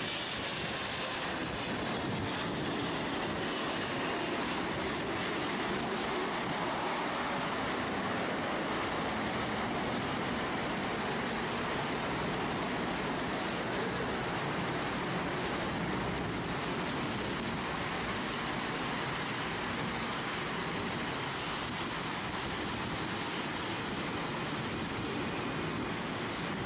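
Steady noise of a twin-engine widebody jet airliner's engines as it rolls down the runway just after touchdown, heard from a distance.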